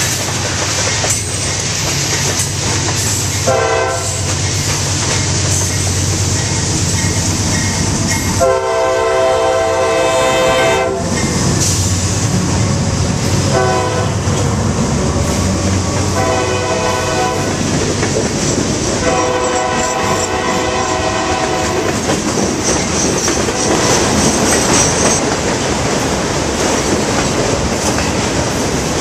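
CSX diesel freight locomotive's air horn sounding five chord blasts, two short and three longer, the longest about two and a half seconds. Under it runs the steady rumble of the passing freight train, its wheels clattering and hissing on the rails.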